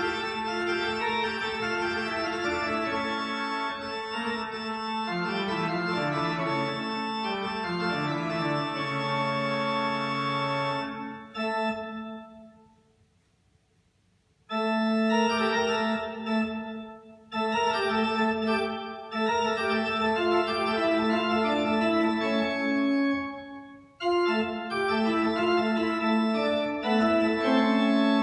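Church organ playing held chords over a bass line that steps downward. About eleven seconds in the playing stops and the sound dies away to near silence. A few seconds later it starts again with a full chord, with two short breaks after that.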